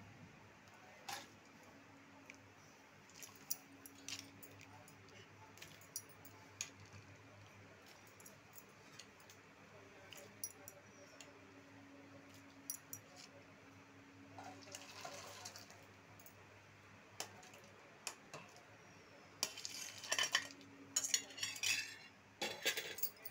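Steel ladle clinking and scraping against a steel pot and steel plates as chickpea curry (ghugni) is served, in scattered light knocks. Near the end, a louder run of clattering as the steel plates are picked up and moved, over a faint low steady hum.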